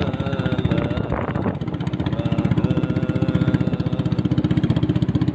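Small wooden fishing boat's engine running steadily under way, with a fast, even pulse.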